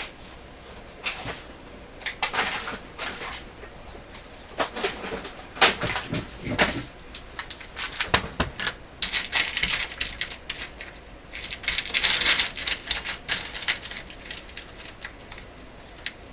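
Small parts being handled on a workbench: scattered clicks and taps, then two stretches of clinking and rustling about nine and twelve seconds in, as small hardware such as washers is sorted through.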